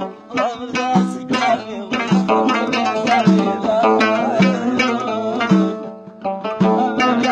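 Middle Eastern folk music played on a plucked string instrument, a quick melody of wavering notes over a deep hand-drum beat about once a second.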